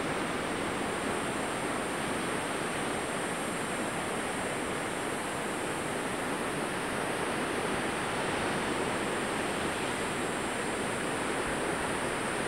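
Distant surf on a rocky shore: a steady, even rush with no single wave standing out.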